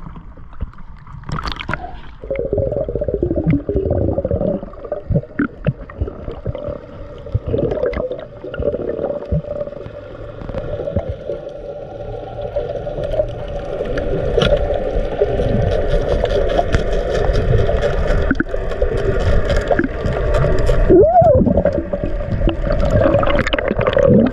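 Muffled underwater sound: a dense low rumble and gurgling of water, under a steady droning tone carried through the water, which grows louder toward the end.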